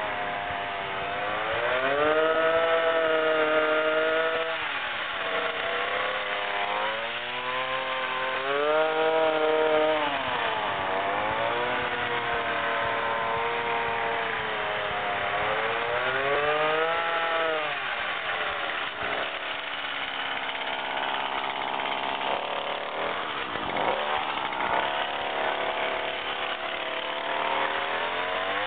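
Motor of a 1:8 scale RC Mack CH truck running, its pitch rising and falling again and again as it speeds up and slows down. About two thirds of the way through the pitch fades into a rougher, steadier noise.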